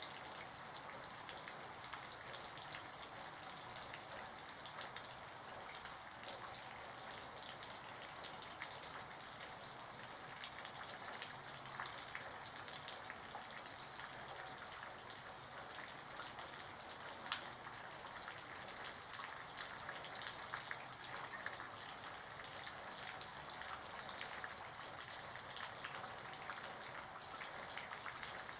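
Steady light rain falling: an even hiss of rain with many small drop impacts ticking through it, and one sharper drop hit about seventeen seconds in.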